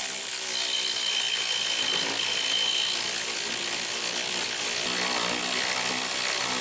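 Handheld power tool running without a break as it drives a battery tray bolt in, with its motor pitch shifting slightly under load.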